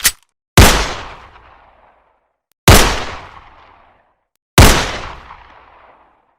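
A short metallic click as the 9mm pistol is handled, then three slow, evenly paced 9mm pistol shots about two seconds apart, each a sharp crack with a long echoing tail.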